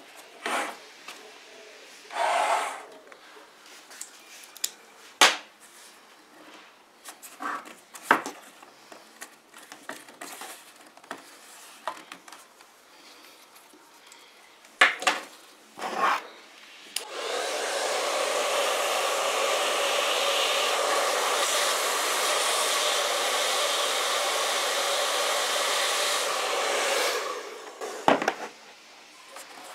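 Hands rubbing and handling a leather-wrapped door panel, with scattered rustles and taps. About seventeen seconds in, an electric hot-air blower switches on and runs steadily with a whirring hum for about ten seconds, then stops.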